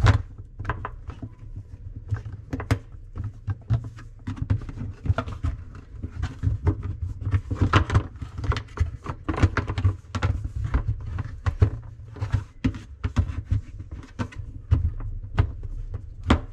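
Irregular clicks, taps and knocks of plastic parts being handled and pressed into place: a KitchenAid dishwasher's filter cover and plastic tube being fitted back in the bottom of the tub.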